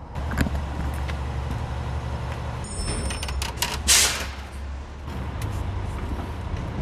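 Plastic wheel cover being pried off a steel wheel with a long screwdriver: scraping and clicks, ending in a loud rasping pop about four seconds in as it comes free. Afterwards, scattered clicks as a floor jack is worked under the car, over a steady low hum.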